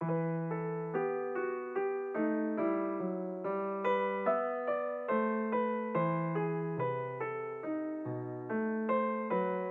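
Background music: an electric piano playing a gentle tune of evenly paced notes over chords, about two notes a second, each fading after it is struck. It starts suddenly right at the beginning after a brief silence.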